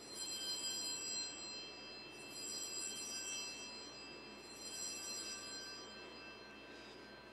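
Small altar bells (Sanctus bells) rung in three jangling peals, each a cluster of strikes with a high, lingering ring. They mark the elevation of the chalice at the consecration.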